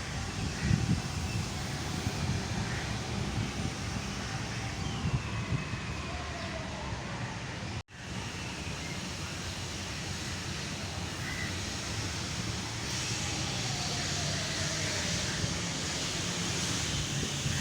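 Steady outdoor background noise with wind buffeting the microphone. A few faint, short gliding calls sound over it, and the sound drops out abruptly for an instant about 8 seconds in.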